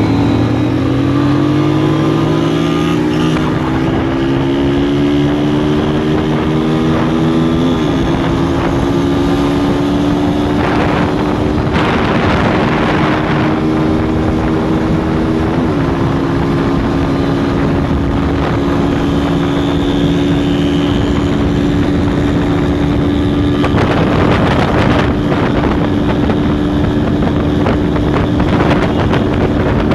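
125 cc single-cylinder four-stroke motorcycle engine pulling away hard, its pitch climbing, with gear changes about eight and fifteen seconds in, then holding a steady cruising speed. Wind buffets the microphone at times.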